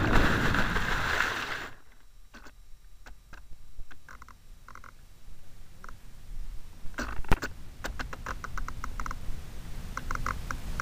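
Rushing wind and motion noise on a radio-controlled model plane's onboard camera as the plane skids through grass and stops; the noise cuts off about two seconds in. After that there are only faint scattered clicks and a few short high chirps.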